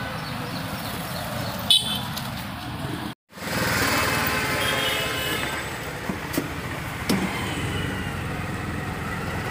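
Busy city street traffic with a short horn toot. After a brief cut to silence, the traffic goes on as heard from inside an auto-rickshaw.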